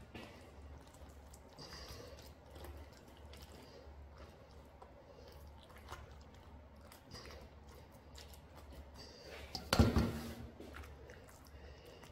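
Soft wet squishing of a salted napa cabbage being rubbed with thick chili kimchi paste and packed into a container, with scattered small clicks. A single loud thump near the end.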